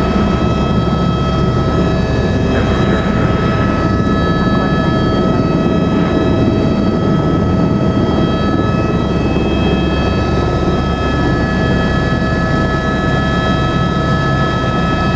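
Eurocopter AS350 B3 helicopter's single turboshaft engine and rotor at flight power during lift-off and hover-turn, heard from inside the cabin: a steady high whine over a dense low noise.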